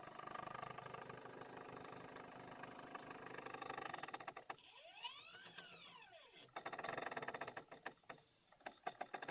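Stepper motors of a homemade CNC pen plotter built from scavenged parts, whirring as the axes move through a test pattern. About halfway through, the motor whine rises and then falls in pitch as an axis speeds up and slows down.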